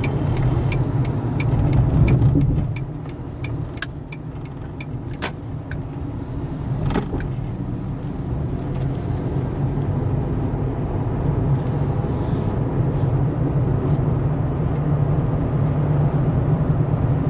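Engine and road noise inside a moving car's cabin, a steady low rumble that drops a little after a couple of seconds and slowly builds again. A regular ticking, about three clicks a second, runs through the first five seconds.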